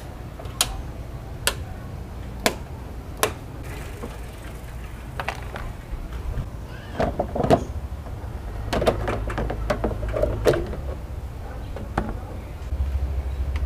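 Plastic push-pin clips clicking as they are pried out of a Toyota's plastic radiator support cover. A few sharp, separate clicks come in the first seconds, then a denser run of clicks and plastic knocks around the middle as the cover is worked loose and lifted.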